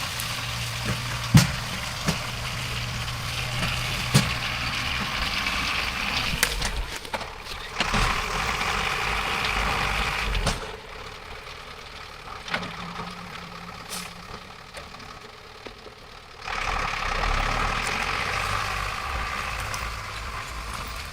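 Engine of a logging winch tractor running under load, with a few sharp clicks near the start. It drops to a quieter running about halfway through and comes back up about five seconds later.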